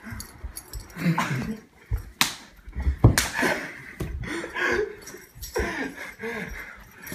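Two people wrestling on a carpeted floor: scuffling, grunts, panting and breathless laughter, with two sharp smacks about two and three seconds in.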